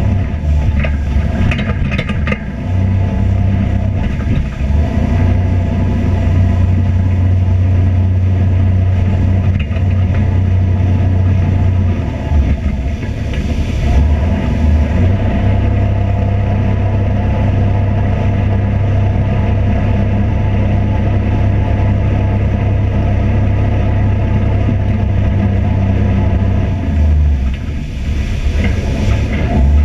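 A vehicle's engine running steadily, a loud low drone that eases briefly twice.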